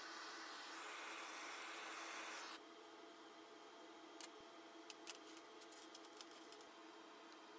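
A steady hiss, which cuts off suddenly about two and a half seconds in. Then the faint rustle of rope and gloved hands, with a few light clicks, as a rope handle is threaded through small steel brackets.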